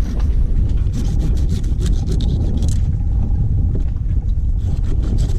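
A steady low rumble, overlaid with quick scraping strokes of a knife working through a triggerfish's tough skin, bunched between about one and three seconds in and again near the end.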